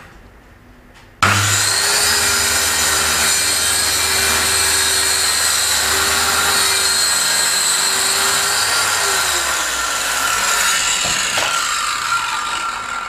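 Handheld circular saw starting up about a second in, then running steadily as it cuts straight through a sheet of plywood.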